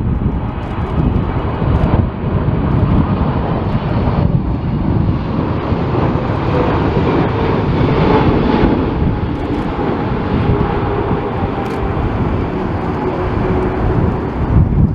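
Jet airliner engines running in a steady rumble as the plane passes, with faint whining tones over it, and gusty wind buffeting the microphone.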